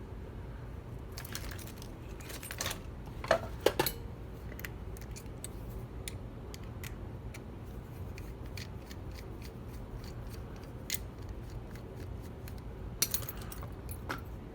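Small metal clicks and scrapes as a screwdriver works on a Goal D9 dimple lock to take it apart, the loudest knocks coming in a cluster about three to four seconds in and again near the end, over a steady low hum.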